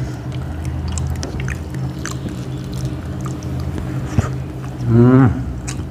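Eating by hand from steel plates: fingers mixing rice and curry, and chewing with small wet clicks, over a steady low hum. A brief voiced murmur comes about five seconds in.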